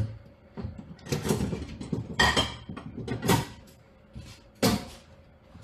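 Kitchen crockery and cupboard handling as a small plate is fetched: four or five separate clatters and knocks spread over a few seconds.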